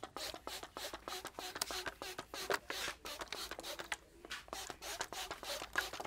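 Hair cracking during a head massage: quick, irregular crisp snaps, several a second, as tufts of hair are gripped and pulled sharply.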